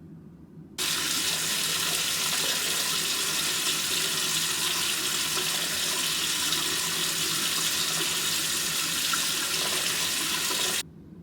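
Bathroom sink tap running in a steady rush of water, starting abruptly about a second in and cutting off shortly before the end.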